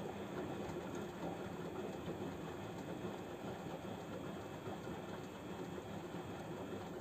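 Samsung WF0800NCE front-loading washing machine running steadily during its drum cleaning cycle.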